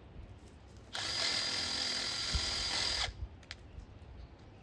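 A power drill runs for about two seconds with a steady motor whine, starting about a second in and stopping abruptly.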